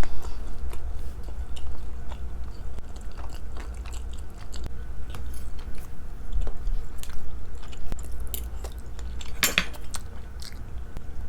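Close-miked chewing of food, with irregular small wet clicks and smacks of the mouth and one sharper smack about nine and a half seconds in, over a steady low hum.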